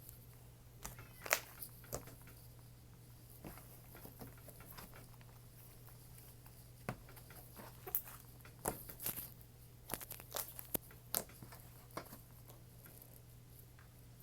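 Hands squishing and poking slime: faint, irregular little clicks and crackles, with a cluster of louder ones past the middle, over a faint steady low hum.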